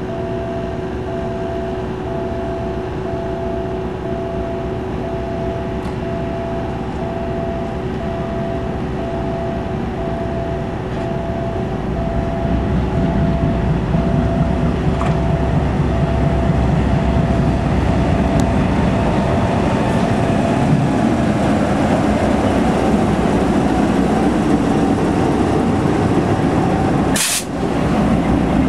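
A GE C36-7i diesel-electric locomotive's 16-cylinder engine running steadily as the locomotive rolls slowly along the track, growing louder about halfway through as it comes close, with a brief break near the end.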